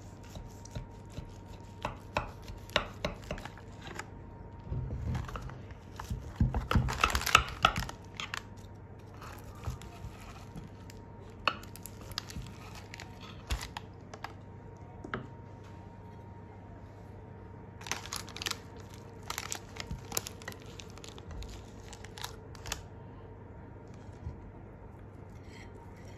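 Kitchen knife cutting through the crisp baked crust of a leek börek in a glass baking dish lined with parchment paper: irregular crunching and crackling clicks, loudest about six to eight seconds in and again in a cluster a few seconds past the middle.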